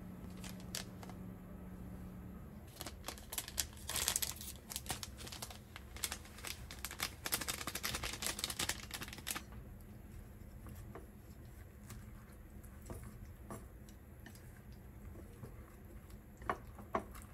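Dry crinkling and rustling as dried bonito flakes (katsuobushi) are shaken out by hand over a bowl of okra, a dense crackle from a few seconds in until about halfway through. Near the end a few light clicks of chopsticks against the bowl as the okra is tossed.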